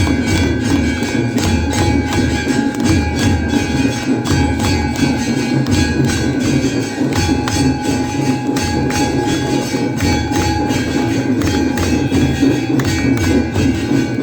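Temple aarti percussion: bells ringing continuously over fast, steady drumbeats and jangling metal clicks.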